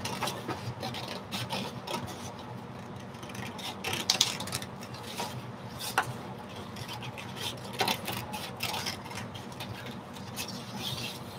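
Scissors cutting through heavy drawing paper coated in oil pastel, with irregular short snips and paper rustling as the cut-out is handled.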